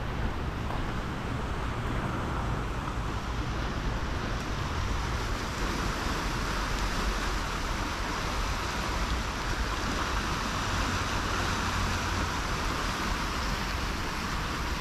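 Swollen river in flood, water rushing steadily as an even noise with a low rumble under it.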